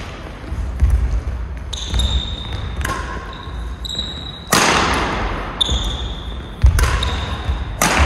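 Badminton rally: rackets striking the shuttlecock with three sharp hits about a second or two apart in the second half, between court shoes squeaking on the floor and low footstep thuds.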